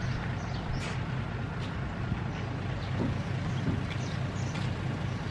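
An engine running steadily, an even low drone, with a few faint knocks over it.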